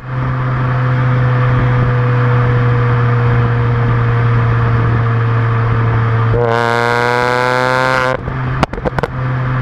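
Supercharged Mini Cooper S four-cylinder engine and exhaust running at a steady cruise, then opening up to a higher, fuller note about six seconds in. On lift-off near the end the exhaust gives a quick run of sharp pops and cracks: overrun pops and bangs from a tune set up to fire in the exhaust.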